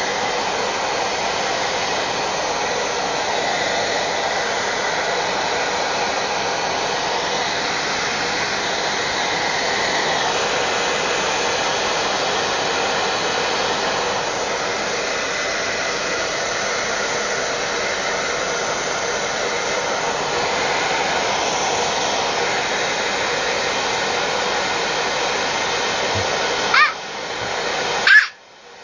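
Handheld hair dryer blowing steadily, with an even rushing noise; near the end it falters and then cuts off abruptly.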